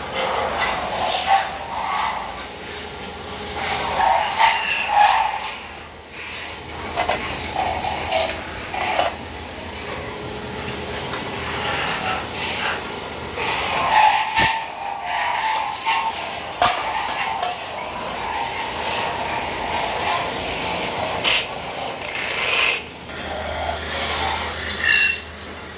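Belt-driven metal lathe running while a hand tool scrapes against a spinning stainless steel plate, a continuous rasping with irregular knocks and clatter.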